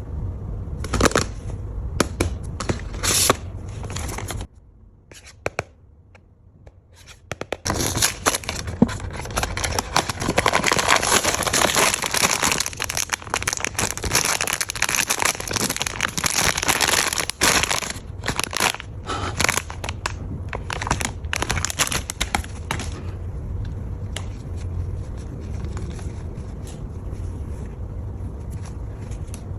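Blind-box packaging being torn open and crinkled by hand: sharp rips and crackles, with a long stretch of dense tearing and crinkling in the middle that settles into a quieter steady noise near the end.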